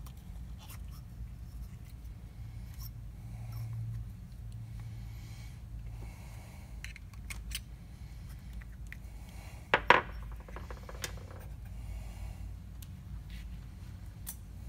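Light clicks and taps of suppressor parts (metal baffles, rubber wipes and the tube) being handled and fitted together on a workbench, with one sharp, much louder clack about ten seconds in, over a steady low hum.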